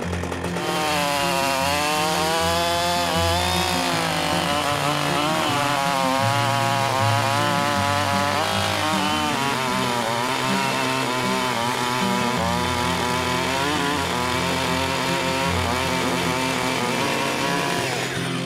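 Husqvarna 555 two-stroke chainsaw running at full throttle while cutting through a thick log, its engine pitch wavering up and down as the chain works under load in the wood.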